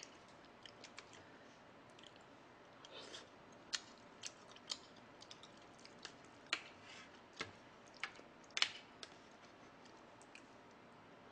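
A person eating quietly: soft chewing, broken by scattered sharp little clicks about once a second.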